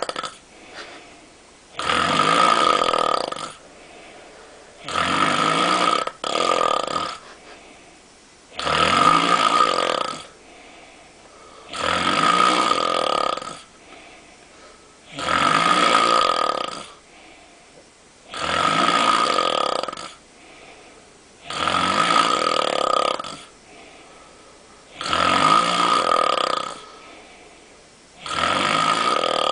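A man snoring loudly and regularly in deep sleep: nine long snores of about a second and a half each, roughly every three and a half seconds, with quiet breathing between them.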